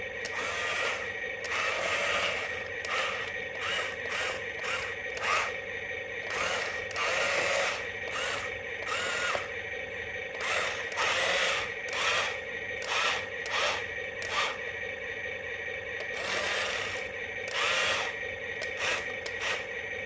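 Small electric motor whirring steadily through gears, with irregular clicks and scrapes, as on a motorised toy excavator at work.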